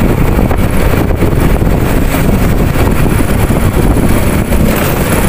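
Steady wind rush over the microphone of a moving motorcycle, with its engine running underneath.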